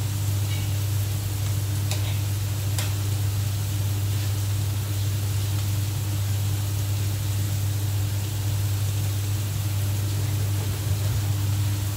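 Food sizzling faintly in a frying pan under a steady low hum and hiss. Two light clicks of a spatula against the pan come about two and three seconds in.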